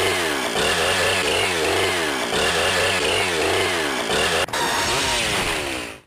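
Kamen Rider Zombie Breaker chainsaw weapon sound effect after Poison Charge: a revving, chainsaw-like whirr made of repeating sweeping whines over a low hum that comes and goes, with a click about four and a half seconds in. It cuts off suddenly at the end.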